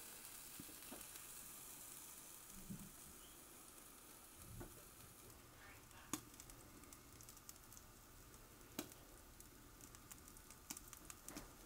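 Faint sizzling of sliced tri-tip and provolone cheese melting under an overhead infrared broiler, with a few scattered ticks.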